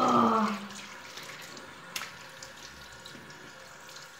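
Tap water running steadily into a bathroom basin over a person's wet, shampooed head. It opens with a short, loud sound that falls in pitch, and there is a single click about two seconds in.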